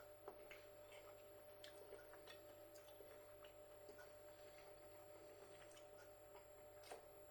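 Near silence: room tone with a faint steady hum and faint, irregularly spaced small clicks.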